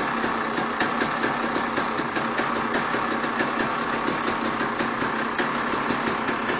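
KTM 300 EXC's single-cylinder two-stroke engine idling steadily.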